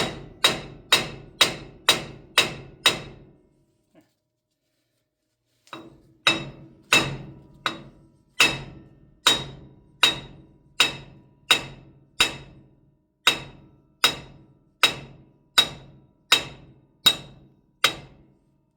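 Hammer blows driving a broken wheel stud out of a 1952 Ford F-3's front hub: sharp metal-on-metal strikes, each ringing briefly, about two a second. They stop for about three seconds a few seconds in, then resume at a slightly slower, steady pace until near the end.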